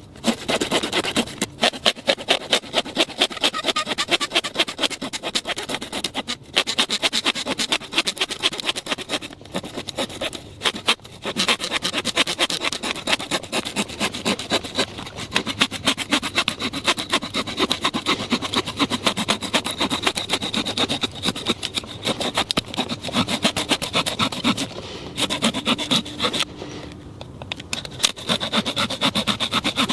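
A small hand saw cutting through a thin wooden log with quick, even back-and-forth strokes, broken by a few short pauses.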